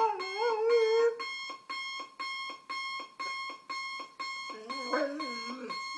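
Electronic alarm clock beeping about twice a second, while a German Shorthaired Pointer howls at it: a loud wavering howl at the start and a lower one near the end.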